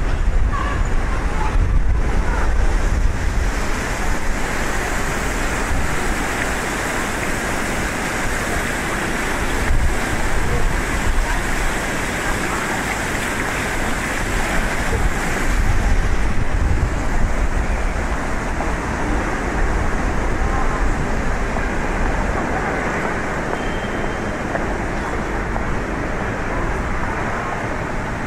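Steady city street traffic noise: a continuous rush of passing cars with a low rumble underneath.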